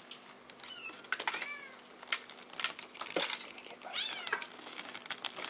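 Bengal kittens mewing: about three short, high-pitched mews whose pitch bends up and down, mixed with scattered sharp clicks and knocks.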